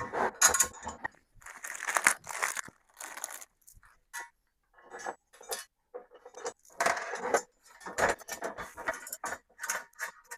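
Metal TV-mount bracket parts and bolts being handled and fitted, clinking and rattling in irregular clusters with short pauses.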